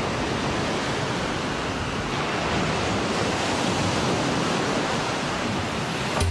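Ocean surf breaking and washing up onto a sandy beach, a steady rush of wave noise.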